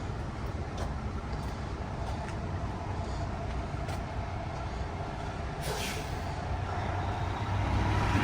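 Road traffic: the engine of a large vehicle such as a truck or bus running close by, with a short hiss about six seconds in. It gets louder near the end.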